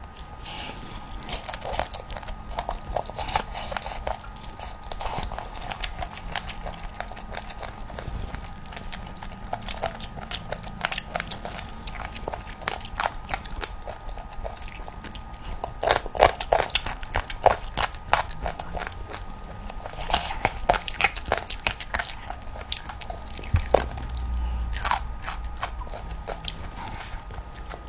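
Close-miked eating of chicken feet: a steady run of wet clicks, smacks and crunches from biting and chewing skin and cartilage, with a thick cluster of bites around the middle and again a few seconds later.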